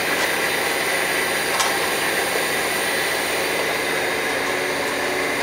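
Steady running-machinery noise of a cable factory: an even hiss with a thin high whine held throughout, and one light click about a second and a half in.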